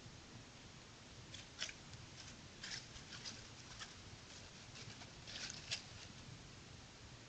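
Grey fox walking over dry leaf litter and rocks: a scatter of faint leaf crackles and rustles, loudest about a second and a half in and near the end, over a steady low hiss.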